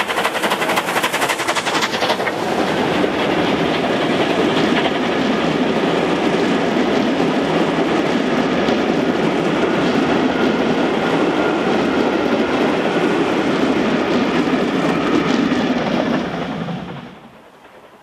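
Rebuilt Bulleid Pacific three-cylinder steam locomotive passing under power, its rapid exhaust beats sharp for about the first two seconds. Then comes the steady rumble and wheel noise of its coaches running past, which cuts off about a second before the end.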